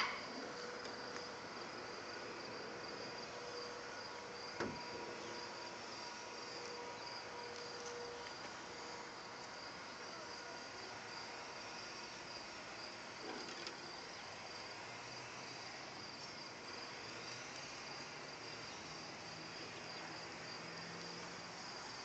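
Crickets chirping in a steady, high, even trill, with a single light click about four and a half seconds in.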